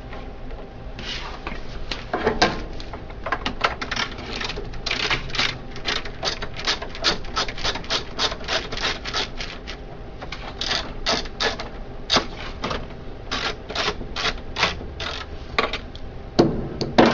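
Rapid, irregular clicking and tapping, several clicks a second, from screws being worked out of a Dell 1815DN laser printer's plastic housing, over a steady low hum.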